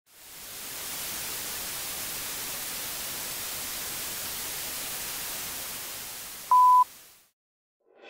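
Television static hiss that fades in, holds steady and fades out, with one short, loud, high beep of a film countdown leader about six and a half seconds in.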